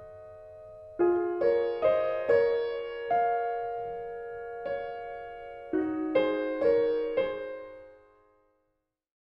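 Intro music: a piano plays a slow run of single notes and chords, each struck and left to ring, dying away about eight seconds in.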